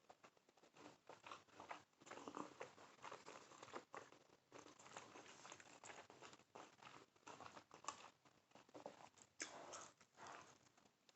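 Faint, close-miked chewing of a consommé-dipped beef birria taco: a steady run of small wet mouth clicks and smacks.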